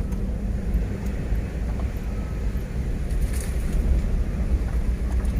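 Isuzu Trooper driving over potholes, heard inside the cabin: a steady low road and engine rumble with a few faint ticks. No squeak sounds from the body, the sign that the bolted-up panel no longer creaks.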